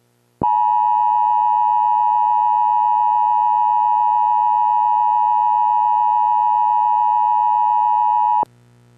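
Emergency Alert System attention signal: a loud, steady two-tone alarm held for about eight seconds, then cut off abruptly. It announces that an emergency alert message is about to be read.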